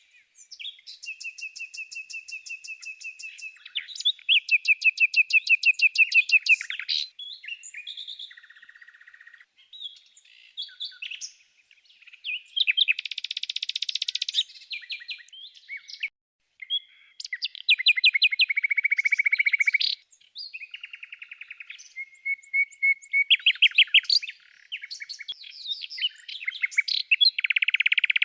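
Songbirds chirping and singing in varied phrases of rapid repeated notes and trills, with short pauses between phrases.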